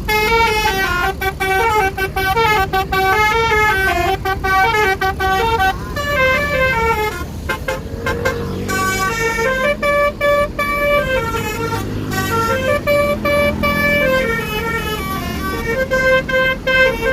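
Bus basuri horn playing a tune: a run of loud horn notes stepping up and down in pitch, one after another, over the low sound of the bus engine.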